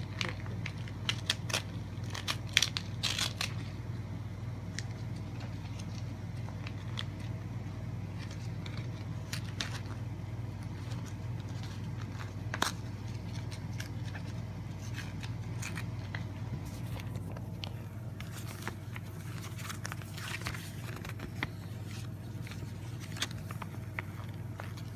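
Intermittent crackling and clicking of a VHS tape case and its paper inserts being handled, busiest in the first few seconds, over a steady low hum.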